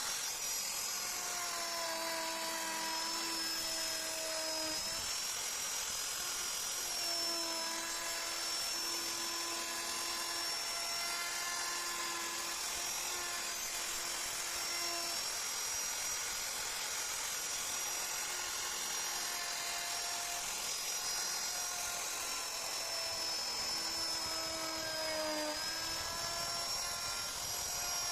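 Handheld high-speed power tool carving wood, its motor running with a steady high whine that sags slightly in pitch from time to time as it takes load in the cut.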